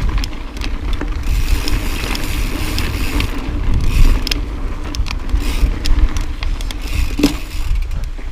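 2013 Tallboy LTc full-suspension mountain bike riding down a rocky dirt trail: tyres rolling over dirt and rock, with frequent clicks and rattles over a heavy rumble of wind on the microphone.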